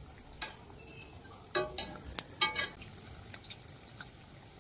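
Moong dal vadas deep-frying in hot oil in a steel kadhai: a faint steady sizzle with small crackling pops. There are two sets of metallic clinks with a short ring, about one and a half and two and a half seconds in, from the wire-mesh skimmer knocking against the kadhai.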